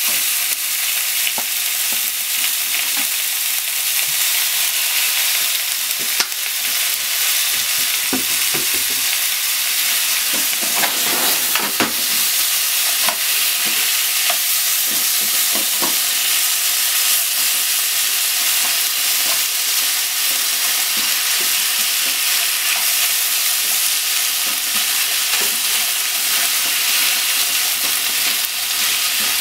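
Sliced pork and onion stir-frying in oil in a frying pan, a steady sizzle under scattered taps and scrapes as wooden cooking chopsticks stir the food against the pan.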